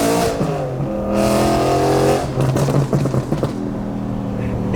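BMW M3 engine accelerating through the gears: its pitch climbs and drops at each shift, at the start and about two seconds in, then holds at a steady pitch for the last second or so.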